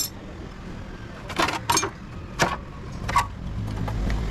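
Several sharp knocks and clinks of tools and metal parts being handled during a motorcycle chain and sprocket replacement, irregularly spaced about half a second to a second apart.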